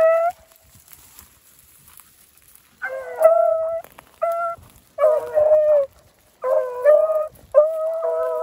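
Rabbit hounds baying: a run of drawn-out, pitched calls starting about three seconds in, repeating in short bouts. Hounds give this voice when trailing a rabbit's scent.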